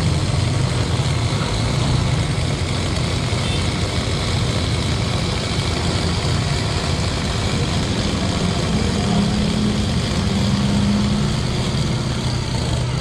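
Cotton candy machine running with a steady mechanical hum, its spinning head throwing out sugar floss as it is wound onto a stick.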